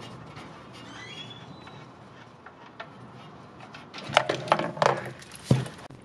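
Metal oil drain plug being spun out of the oil pan by gloved fingers: a short squeak, then a quick run of sharp clicks and taps and one low thump as the plug comes free.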